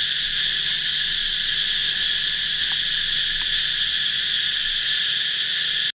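Loud, steady, high-pitched chorus of insects, unbroken, cutting off abruptly at the very end.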